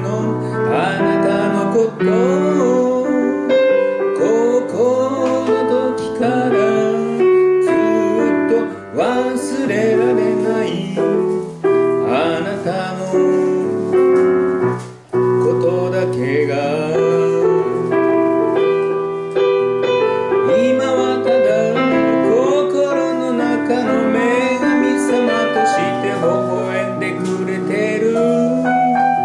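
Woman singing a slow song into a microphone, with piano accompaniment.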